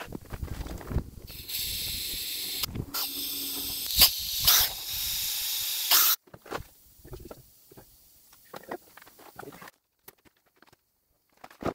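Carbon dioxide hissing from a hose nozzle held against a core box of sodium silicate sand, gassing the core to harden it: a steady hiss for about five seconds with a short break and a few sharp clicks. After it come light knocks and scraping as sand is packed by hand into a wooden core box.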